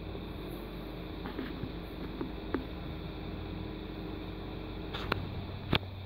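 Steady low hum and hiss of background noise with a few small clicks, the two sharpest just before the end.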